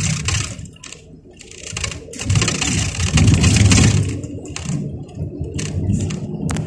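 Rapid rattling and clatter inside a moving vehicle, over a low rumble of engine and road noise. It grows loudest a little past the middle.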